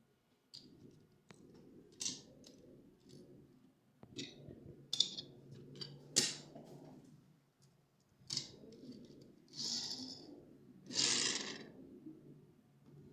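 Toy cars and their plastic packaging being handled and opened: scattered sharp clicks and taps, with short scraping and rustling sounds, the longest about two-thirds of the way through and near the end.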